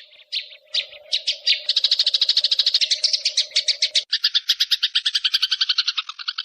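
Songbird giving a rapid trill of evenly repeated high notes, about a dozen a second. It starts as a few separate notes and builds into an unbroken run. About four seconds in it cuts abruptly to a lower, fuller trill, as if a second recording is spliced in.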